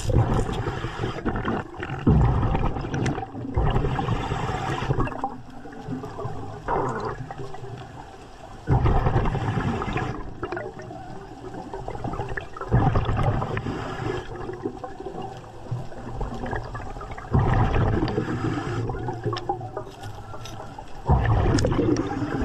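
Underwater breathing of a surface-supplied (hookah) diver: bursts of exhaled bubbles gurgling from the regulator, with the air hiss of each breath. They recur in irregular surges about every three to four seconds.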